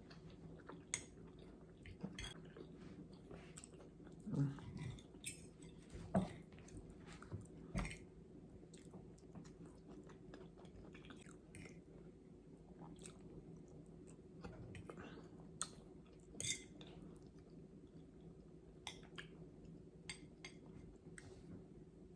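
A person chewing and eating a plate of beans and noodles, with irregular soft mouth clicks and a few louder knocks. A faint steady hum sits underneath.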